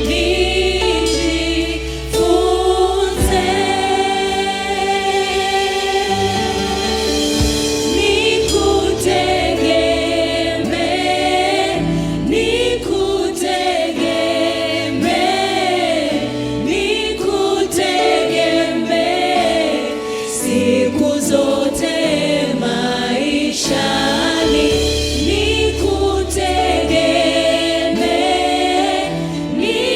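Gospel worship song sung by a choir over a steady instrumental backing with sustained chords and bass.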